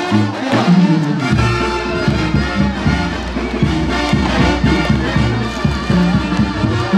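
Brass band music with trumpets and trombones; a low, steady bass comes in about a second in.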